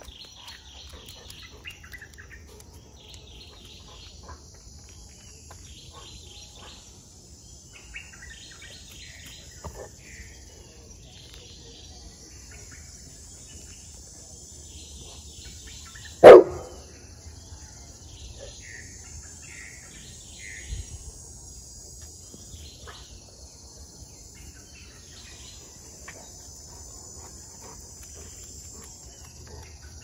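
Forest birds chirping in short bursts every second or two over a steady high insect drone. About halfway through comes a single loud bark from a golden retriever.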